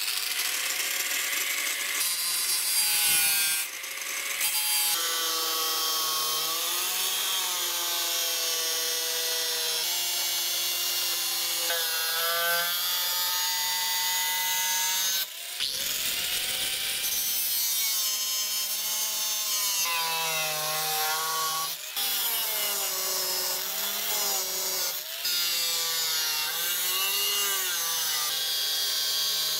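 Angle grinder with a cut-off disc cutting through the steel of an old circular saw blade: a steady, loud grinding whine whose pitch wavers as the disc bites into the metal. There are a few short breaks in the cut.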